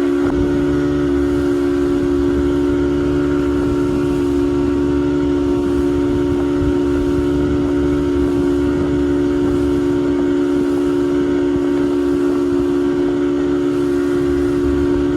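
Motorboat engine running at a steady speed, a constant drone that holds one pitch throughout.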